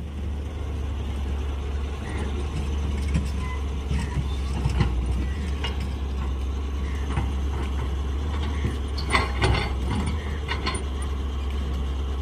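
Hyundai crawler excavator's diesel engine running steadily as it digs, with a series of sharp knocks and clanks from the bucket working soil and rocks, loudest in a quick cluster a little past the middle.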